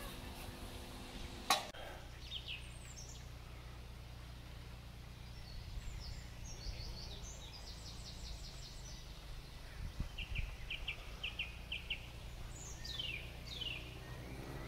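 Small birds singing quietly over a low steady outdoor rumble. The song has a few quick falling notes, a run of rapid chirps, a short series of about five evenly spaced notes, then more falling sweeps. One sharp click comes about a second and a half in.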